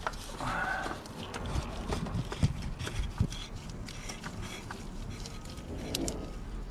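Scattered light clicks and scraping of the oil filter housing being fitted back in and hand-threaded into place, with a short rasping scrape about half a second in.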